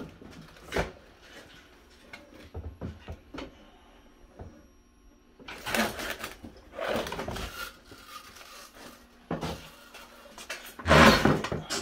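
An Amigo ValueShopper electric shopping cart being tipped over onto its side: knocks and clatter of its metal frame and parts, with the loudest thud about eleven seconds in.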